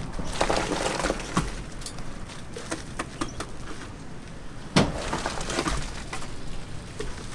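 Irregular knocks and clatter of hard objects, with one loud sharp knock just under five seconds in.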